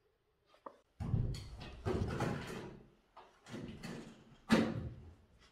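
A glass-paned metal-framed door rattling and knocking as a wolf works at it and pushes it open: a run of clattering knocks, the sharpest and loudest about four and a half seconds in.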